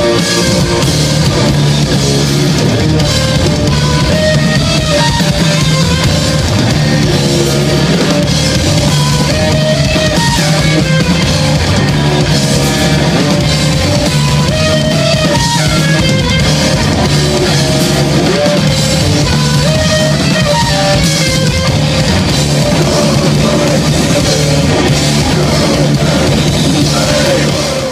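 A live metal band playing loudly: electric guitar, bass guitar and drum kit together in a dense, continuous stretch.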